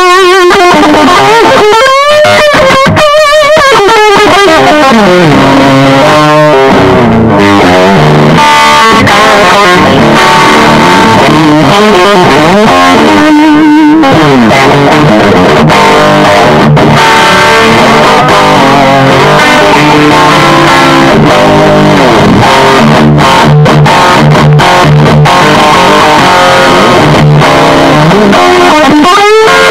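Electric guitar played loud through a Rola Amplifiers Lead 100HW amp head: wavering, bent notes with wide vibrato in the first few seconds, then a riff of held notes and low repeated notes.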